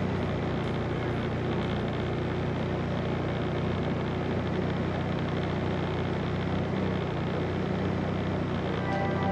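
ATV engine running steadily as it travels along a trail, a constant low hum with no change in speed.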